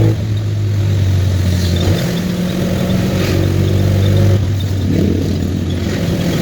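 Vehicle engine running on the move, its note shifting in pitch about two seconds in and again a little past four seconds, over road and wind noise.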